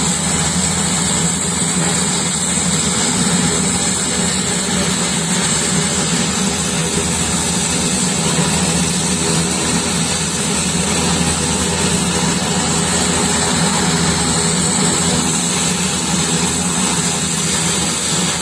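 Steady drone of a turboprop aircraft's engine and propeller, holding an even pitch and level throughout.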